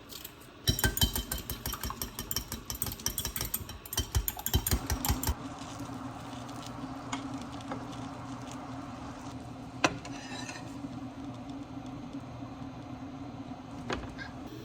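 Rapid clatter of a kitchen utensil working against cookware for about five seconds, then a steady low hum broken by a single sharp click twice.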